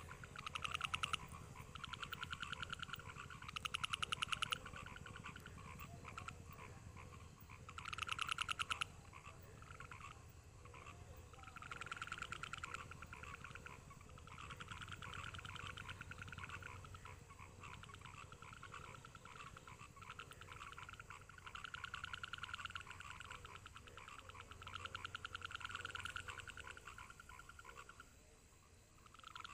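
Frogs calling: rattling croaks made of rapid pulses, coming in repeated bouts of a second or two, one after another.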